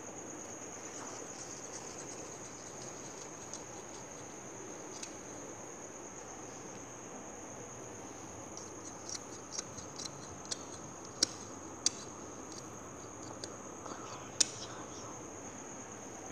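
Large tailor's scissors cutting through embroidered fabric studded with stones, heard as a run of sharp snips and clicks in the second half, three of them louder. A steady high-pitched whine sits underneath.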